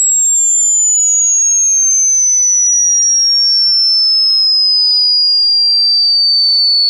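Electronic sine-wave sweep: a single very high-pitched pure tone falling slowly and steadily in pitch, with much fainter gliding tones beneath it.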